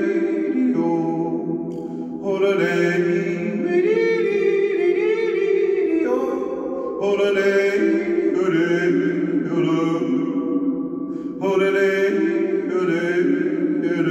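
A man yodelling wordless phrases unaccompanied, his voice jumping between low and high notes. There are three phrases, starting about two, seven and eleven seconds in, each ringing on in the echo of a concrete tunnel.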